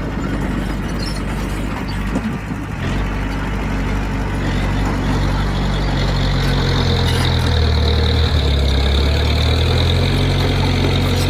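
Heavy diesel engine of earth-moving equipment running steadily, its note shifting about three seconds in and growing louder about two-thirds of the way through.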